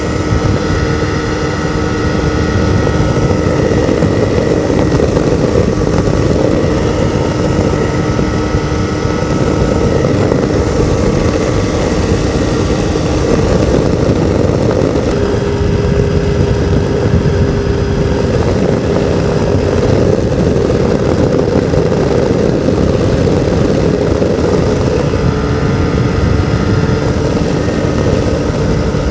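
Two-stroke ultralight engine and propeller running steadily in flight under heavy wind rush on the airframe-mounted camera, throttled back for a simulated engine-out descent. The engine note shifts slightly higher about halfway through.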